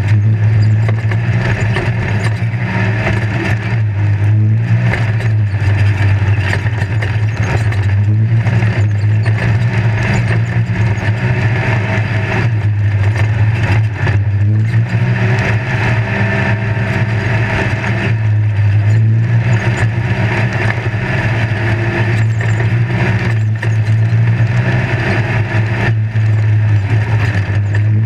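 Off-road race vehicle's engine heard from inside the roll-caged cab, running hard with a constant rattle and rumble. The engine note dips for several seconds about a third of the way in, then picks back up.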